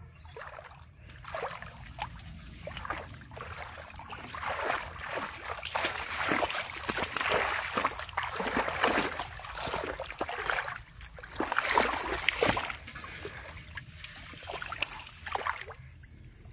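Irregular splashing and sloshing in shallow, weedy water as a large fish thrashes and a child's hands grab at it; the splashing is busiest in the middle and dies down near the end.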